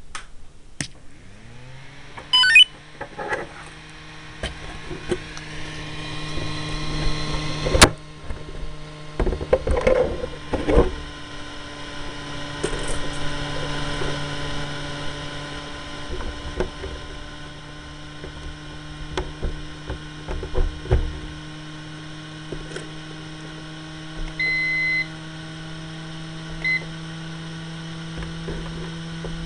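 An electric motor spins up about a second in, its hum rising in pitch and then running steadily, with scattered clicks and knocks, the sharpest about eight seconds in. An electronic beep sounds about 24 seconds in, with a shorter one two seconds later.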